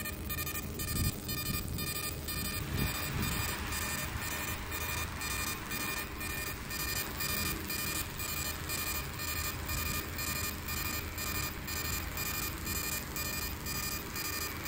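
20 W fiber laser marking machine engraving a bismuth telluride (BiTe) chip: a steady buzzing of several high tones with a hiss that pulses about three times a second as the beam sweeps back and forth, over a low steady hum.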